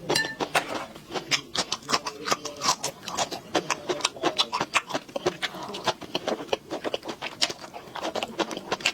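Close-miked eating sounds of someone chewing rice and stir-fried pork: a quick, irregular run of sharp mouth clicks and smacks.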